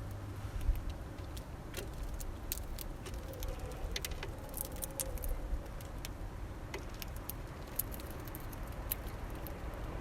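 Scattered sharp clicks and taps of small finches pecking and cracking seeds at a bird feeder, over a steady low rumble of distant traffic.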